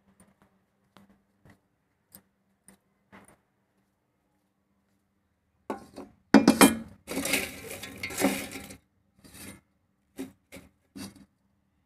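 Dried fruit and vegetable peels handled and stirred by hand in a bowl: a few faint clicks, then a loud spell of dry rustling and crackling with clinks against the bowl, then several short clicks.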